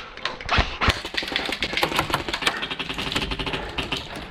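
Airsoft electric guns (AEGs) firing fast full-auto strings, a dense rattle of rapid shots with a couple of louder cracks about half a second and a second in.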